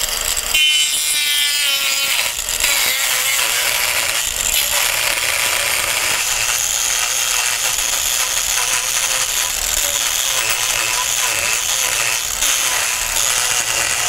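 Proxxon mini angle grinder starting up about half a second in, winding up to speed, then running steadily as its disc grinds wood off a slab to flatten it.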